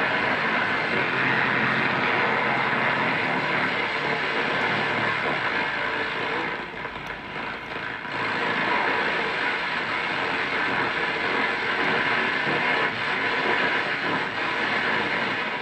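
Marc NR-82F1 dual-conversion shortwave receiver's loudspeaker playing distorted station audio while the tuning knob is turned: a dense, steady rush of sound with no clear tones, dipping briefly about seven seconds in. The distortion is the radio picking up FM broadcast signals on shortwave.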